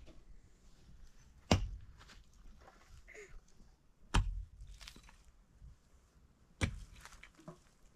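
Mattock striking stony soil three times, about two and a half seconds apart, each blow a sharp thud, with faint scraping and small knocks of earth and stones between.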